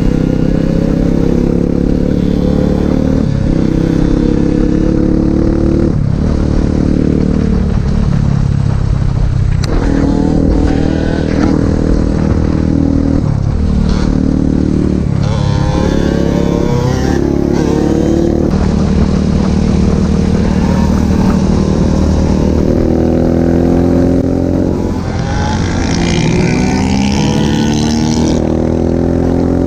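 150cc pit bike engine being ridden hard, heard from on the bike. It rises in pitch through each gear and drops at every shift, several times over, then climbs steadily again near the end.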